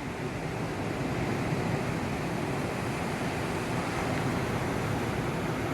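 Steady rushing noise with no distinct events, growing slightly louder in the first second.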